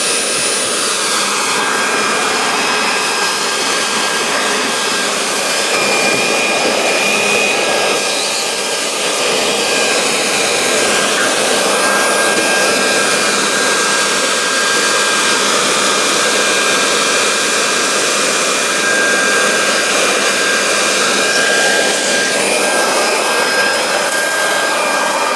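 Corded electric leaf blower running flat out with a steady rushing whine, blasting leaves and grit out of a car engine bay.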